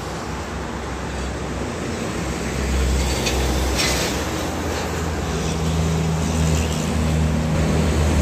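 Heavy diesel trucks passing close by: engine drone and tyre rumble over steady traffic noise, growing louder about two and a half seconds in, with a steady engine note through the second half.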